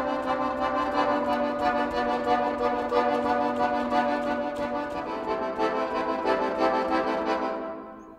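Background music of sustained, held chords that fades out near the end.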